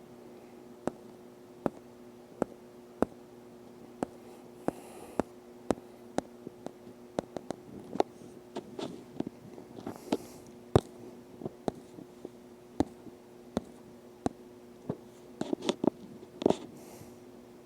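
Irregular sharp clicks and ticks, some coming in quick clusters, over a faint steady low hum.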